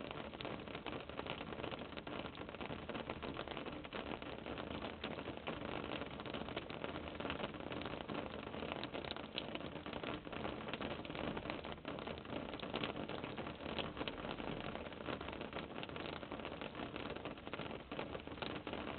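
Steady hiss from a low-quality camera microphone, with scattered faint clicks and rustles of Muscovy ducklings shifting in wood-shavings bedding.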